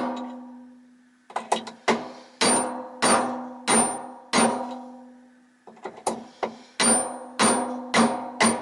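Copper-headed hammer tapping a bearing onto a vacuum cleaner motor's armature shaft: about a dozen sharp metallic strikes, some in quick light clusters, each one ringing on with a steady tone as it dies away.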